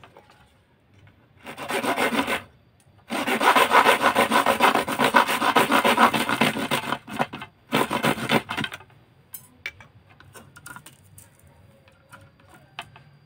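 A flat blade sawing back and forth across a thin fiberglass rod to cut it: a short burst of strokes about a second and a half in, a long run of rapid strokes from about three to seven seconds, and another short burst near nine seconds. Scattered light clicks follow.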